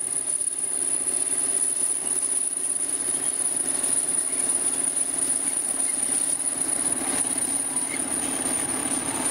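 Crawler bulldozer's diesel engine running steadily as the dozer pushes a pile of earth with its blade.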